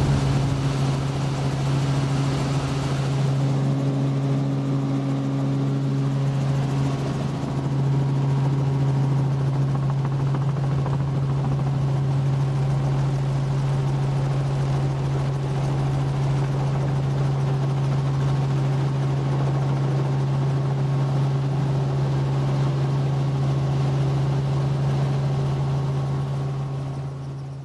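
Helicopter heard from inside its cabin: the rotor and engine make a steady low drone as it comes down to land. The sound fades out near the end.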